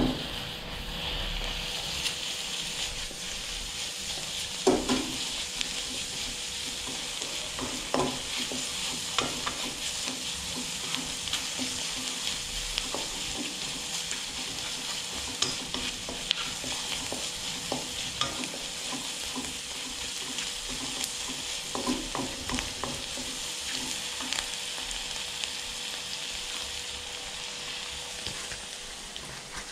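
Stir-fry sizzling steadily in a wok as it is stirred, with a utensil now and then knocking and scraping against the pan.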